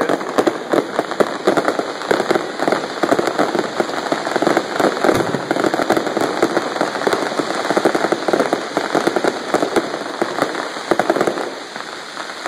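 Fireworks crackling: a dense, rapid run of pops and crackles from gold crackling bursts, thinning out near the end.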